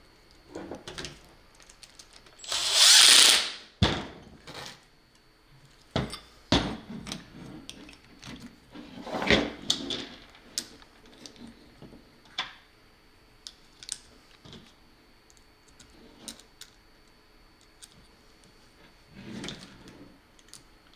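Impact drill with a Phillips bit running for about a second to drive a terminal screw of an explosion-proof plug, about three seconds in. Small clicks and knocks of parts being handled are scattered around it, with a weaker burst near ten seconds.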